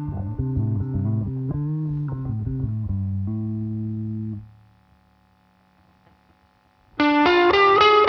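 Blues-rock recording: an electric guitar plays a slow phrase of low, bending notes that dies away about four and a half seconds in. After a near-silent gap, a loud, distorted electric guitar comes in near the end.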